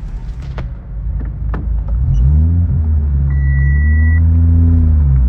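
Very loud deep bass tones from a car sound system's subwoofers over vehicle rumble. The bass swells in about two seconds in and is held, bending slightly in pitch. A short high beep sounds near the middle.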